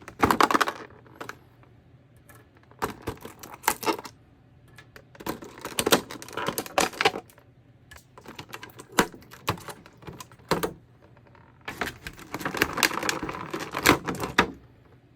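Action-figure packaging being handled and opened: irregular bursts of crackling rustles and sharp clicks from the plastic and cardboard, with short quiet gaps between them.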